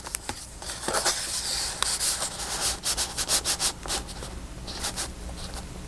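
Paper and card being handled and shuffled: a rustling hiss with many small crinkles and taps.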